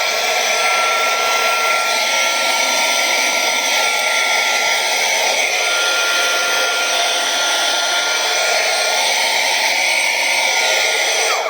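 Small rechargeable handheld vacuum cleaner running steadily with a high, even whine while picking up cat litter. It is switched off near the end, and the whine drops away quickly.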